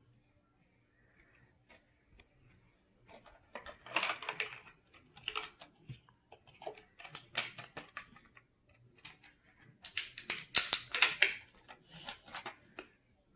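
Hands handling an AirPods Pro case and its packaging: irregular bursts of sharp clicks, taps and scratchy rustling, busiest near the end.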